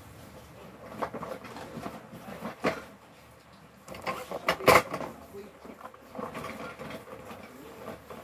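Cardboard box and packaging being handled: rustling and scraping with scattered knocks, the loudest a single sharp knock a little past halfway.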